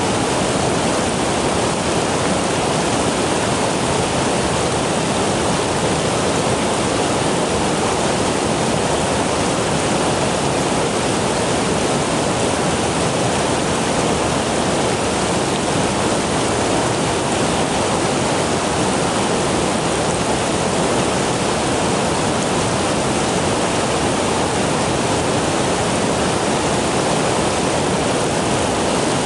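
Rushing water of a flowing stream: a loud, steady, unbroken wash of sound.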